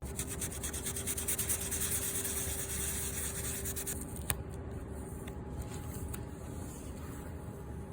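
Steady rubbing, scraping noise with fine, quick repeated strokes for the first four seconds, a faint steady tone under it, and one sharp click about four seconds in.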